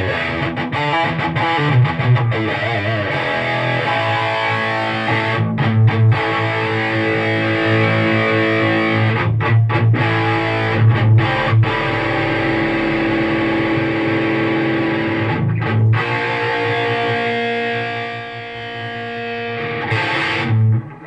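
Electric guitar played loud through an Egnater Rebel 20 tube amp head with the gain turned up, giving a distorted tone: chords and riffs, some held ringing, broken by a few short stops. The guitar goes straight into the amp with no effects pedals.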